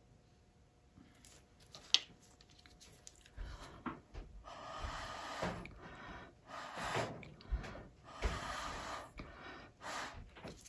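Breath blown through a plastic straw onto wet acrylic paint, pushing it out into a bloom: several long rushes of air, each about a second, with short pauses between. A single sharp click about two seconds in.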